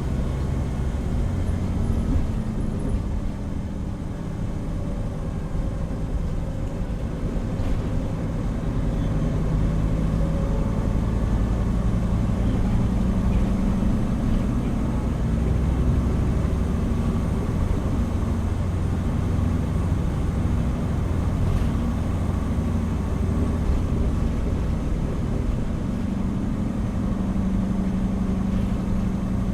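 Hino Rainbow HR (PB-HR7JHAE) route bus heard from inside the cabin while driving: its diesel engine runs steadily under road noise, the engine note shifting up and down as the bus accelerates and eases off.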